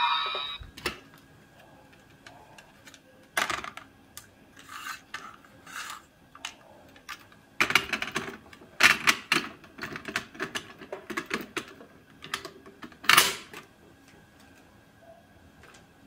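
Hard plastic toy parts being handled: scattered clicks and clacks, a busy run of clattering in the middle and one loud clack near the end.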